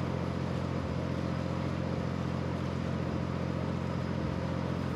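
Speedboat engine running at a steady cruise, a constant drone, over the rush of water churned up in its wake.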